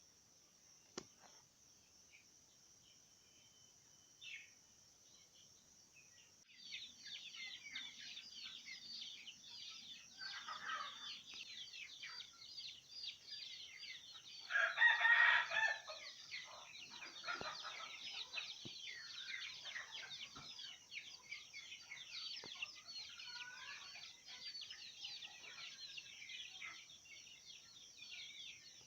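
A flock of chickens calling, with a dense stream of high peeping from about seven seconds in, and one loud rooster crow near the middle.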